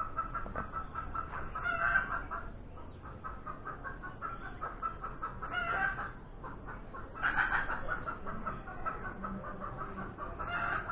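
Chickens clucking in a steady stream of short calls, with a few louder calls standing out now and then.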